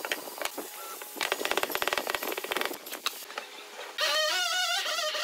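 A fast, even rattle of clicks from work on wood lasts about a second and a half. About four seconds in, louder music with a wavering melody comes in.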